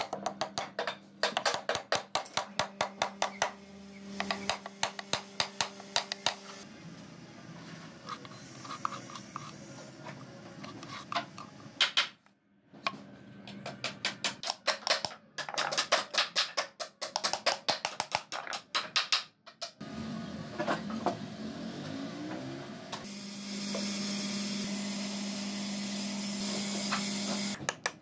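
Quick runs of light hammer taps driving small nails into wood and MDF, several strikes a second. A steady hum with hiss takes over near the end.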